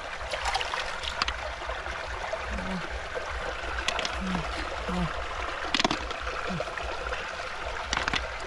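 Muddy water trickling and splashing as a hand digs through a shallow puddle for snails, with a few sharp clicks and knocks scattered through.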